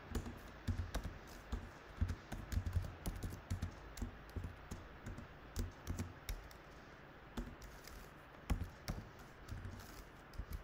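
Typing on a computer keyboard: irregular key clicks in quick runs, thinning out over the last few seconds.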